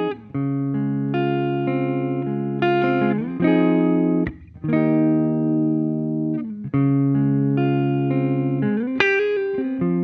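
Les Paul–style electric guitar played through a switched-on Moog MF Drive overdrive pedal and amp, sustaining overdriven chords with a few short breaks between chord changes.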